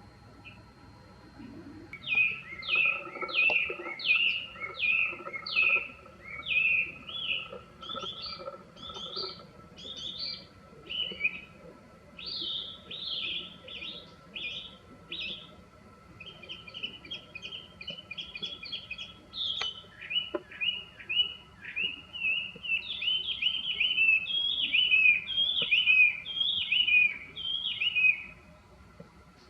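Chinese hwamei singing loudly: a long run of varied whistled phrases, each note repeated several times before the bird switches to a new one. It starts about two seconds in and stops shortly before the end.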